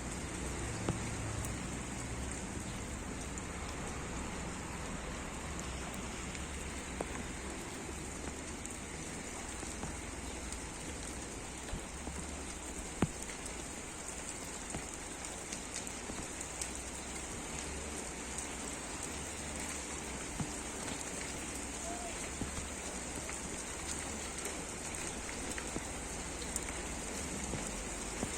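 Steady rain falling, with the scattered ticks of individual drops hitting a surface.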